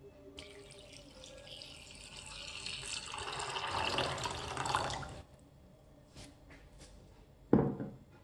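Water poured into a saucepan of soaked soybeans, splashing over the beans and growing louder and deeper for about five seconds before it stops. A single sharp knock comes near the end.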